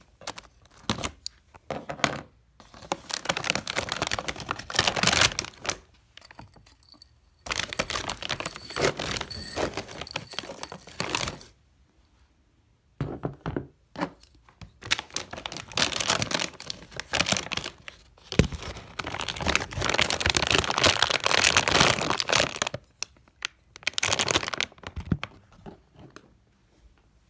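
Loud crinkling and rustling close to the microphone. It comes in several long bursts of one to four seconds, with short quiet gaps between.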